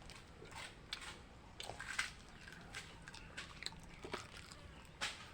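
Faint, scattered crunching and chewing of food, a few short crackly bites spread across the seconds.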